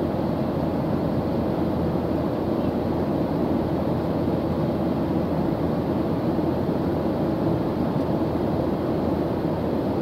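Jet airliner cabin noise in cruise: an even, steady low rumble of engines and airflow heard through the fuselage, with no changes.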